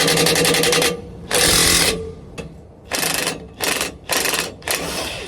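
Impact wrench on a 22 mm socket hammering a traction bar bolt: one run of rapid, even impacts until about a second in, then several short bursts.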